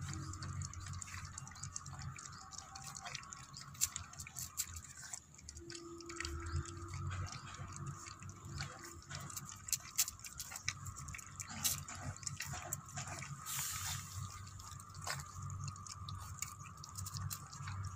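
Several puppies eating from a steel plate: a steady run of small, irregular wet lapping and smacking clicks as they lick up milk and chew roti.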